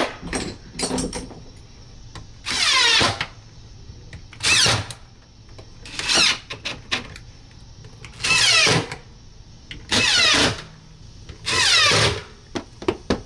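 Cordless drill-driver driving screws through a recessed dryer vent box's flange into the wall framing, in six short runs of under a second each. The motor's pitch drops during each run. There are a few small clicks near the start and the end.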